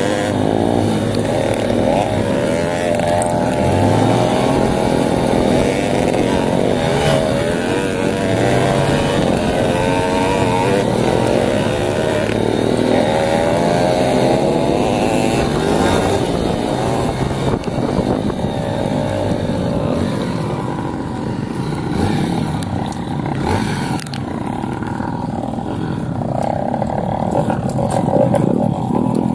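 Dirt bike engine running under load on a rough trail. Its note rises and falls as the throttle is worked, then eases and steadies a little past halfway.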